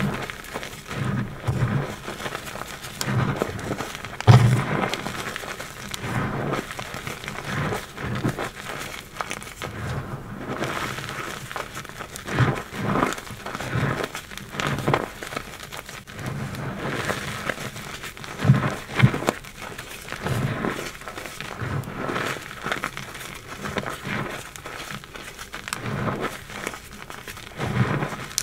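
Hands crushing and crumbling reformed gym chalk in a bed of loose chalk powder: an irregular run of bright, gritty crunches with soft dull thuds as the powder is pressed. The loudest crunch comes about four seconds in.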